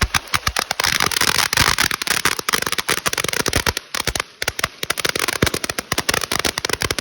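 Diwali firecrackers going off in a rapid, irregular run of sharp cracks, many each second, over a crackling hiss.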